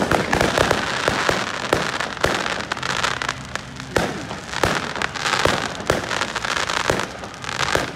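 Fireworks display going off: a dense, continuous run of bangs and crackling shells, several reports a second, with no pause.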